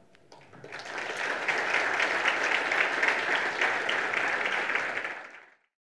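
Audience applauding after a talk. It builds over about the first second and fades away near the end.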